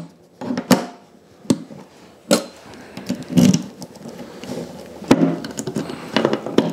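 Sharp clicks and knocks of a lock cylinder being pressed into the metal latch flap of a motorcycle top case and the latch being worked by hand. They come a few at a time at first, then several in quick succession near the end.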